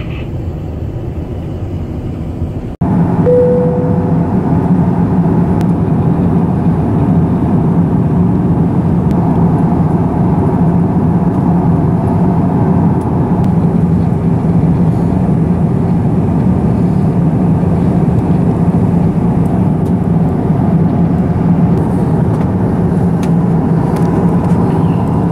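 Steady cabin noise of an Airbus A350-900 in flight, a dense rush of air with a low hum from its Rolls-Royce Trent XWB engines. It is softer for the first few seconds, then louder after a sudden jump, with a brief fading tone just after.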